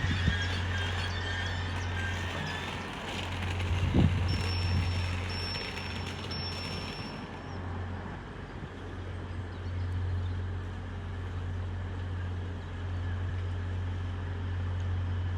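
Train running with a steady low drone and a rushing noise that eases off about halfway through. A faint thin high whistle sounds for a few seconds in the middle.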